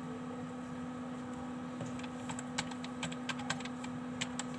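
Typing on a computer keyboard: a run of quick, irregular key clicks starts about two seconds in, over a steady low hum.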